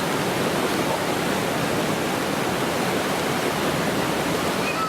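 Whitewater rapids of a canoe slalom course rushing steadily.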